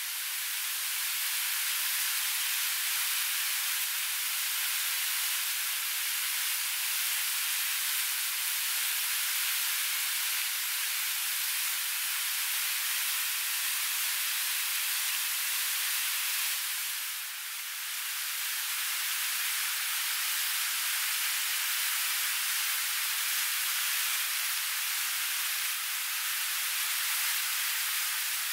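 Battered banana slices frying in hot oil in a pan on a portable gas stove: a steady, even sizzle that dips briefly about two-thirds of the way through.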